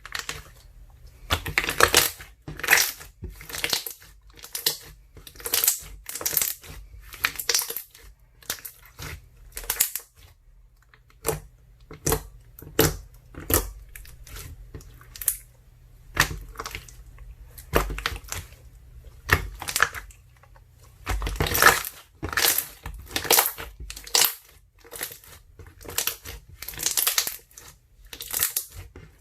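Ice slime mixed with soothing gel being squeezed and pressed by hand, giving a run of short squishy, crackly bursts, about one to two a second, with brief pauses partway through.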